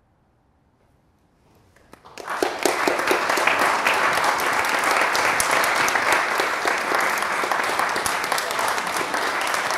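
Near silence, then applause breaks out about two seconds in and goes on steadily, with the singers clapping along with the audience.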